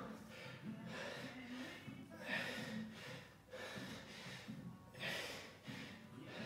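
A man breathing hard during bodyweight squats, with forceful exhales and gasps coming in a repeating rhythm, the strongest about two and five seconds in.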